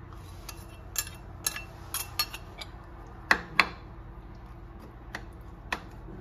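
A kitchen utensil clinking and tapping against a dish while marinade is worked over raw chicken thighs: about eight sharp clicks, the two loudest close together about three and a half seconds in.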